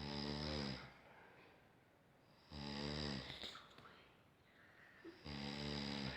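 A sleeping person snoring: three long, rasping, pitched snores come about every two and a half seconds, each sagging slightly in pitch, with quieter breathing between them.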